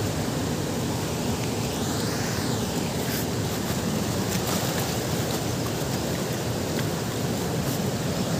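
Fast mountain river rushing over rocks: a steady, even roar of water.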